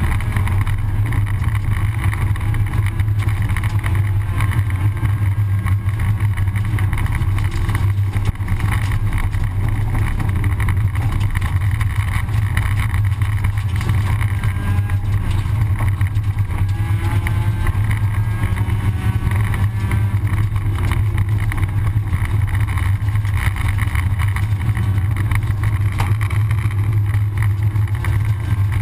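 Rally car's engine running at speed on a gravel stage, heard from inside the cockpit, with steady road and tyre noise underneath. The engine's pitch rises and falls several times about halfway through.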